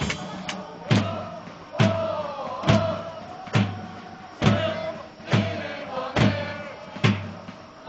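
Football supporters chanting a song together, kept in time by a drum beaten about once a second.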